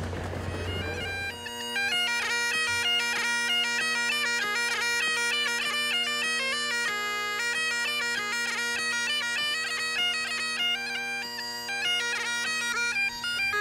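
Great Highland bagpipe playing a tune: the steady drones hold under the chanter's quick, ornamented melody. It sets in about a second and a half in, after a brief stretch of station-hall crowd noise.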